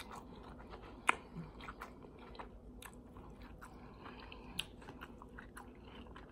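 A person chewing a mouthful of tortilla chips and ground beef, soft mouth sounds with scattered small crunches and clicks, a sharper click about a second in.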